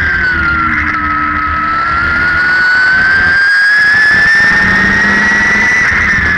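Midget race car engine heard from the cockpit, its revs dropping through a turn in the first second, then climbing steadily for about five seconds down the straight and easing off again near the end.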